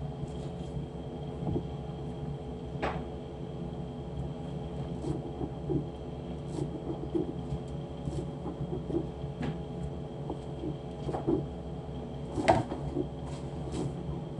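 A kitchen knife cutting watermelon over a metal tray, giving scattered sharp clicks and knocks, the loudest near the end, over a steady low hum.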